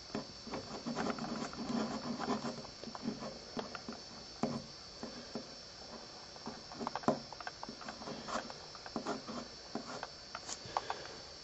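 Pen writing on paper: irregular short scratches and taps of the tip as answers are written out, over a steady faint hiss.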